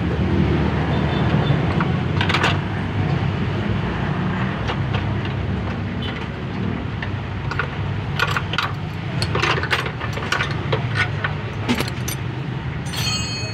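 Steady low rumble of a car engine running at idle, with scattered sharp metallic clicks and a short ringing jingle near the end.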